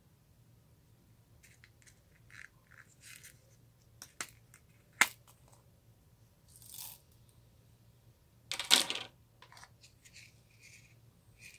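Glossy slime being squeezed and poked by hand: scattered small sticky clicks and squelches, with a sharp click about five seconds in and a louder squelch near nine seconds.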